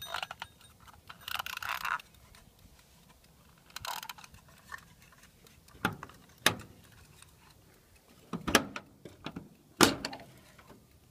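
Handling noises: a rustle over the first two seconds while the egg timer is being set, then a handful of separate sharp clicks and knocks, the loudest near the end, from the generator enclosure's metal door and hasp being handled. No engine is running.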